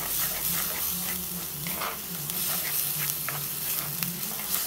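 Onion and green chilli paste with ginger-garlic paste sizzling in hot oil in a clay pot, with a spoon stirring and scraping through it, giving a steady hiss with light scrapes.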